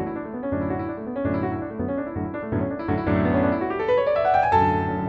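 Background piano music, a melody of separate notes with a run that climbs about four seconds in.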